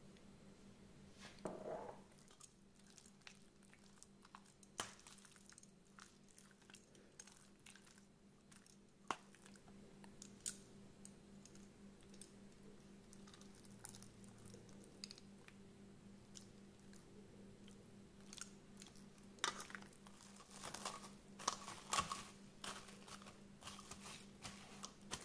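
Raw pork pieces squelching and clicking as they are turned over in char siu sauce in a stainless steel bowl. Near the end, plastic cling film crinkles as it is stretched over the bowl. A steady low hum runs underneath.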